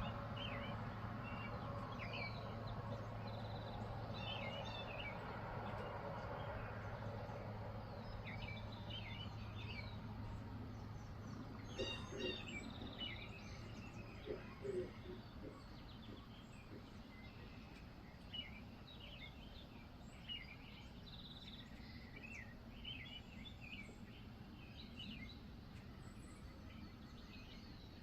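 Small wild birds chirping over and over in short calls, over a steady low hum that fades out about halfway through. A few louder knocks sound around the middle.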